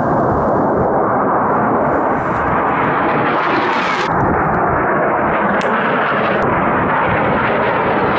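AV-8B Harrier II jet engine noise as the jet flies low past, a loud, steady rush. It brightens as it swells toward about four seconds in, then cuts abruptly to a duller rush.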